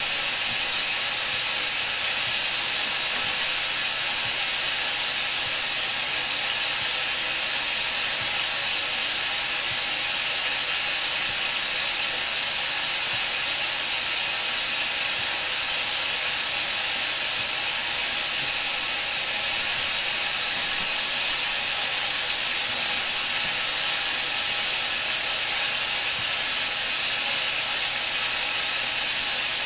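A steady, even hiss that does not change or break.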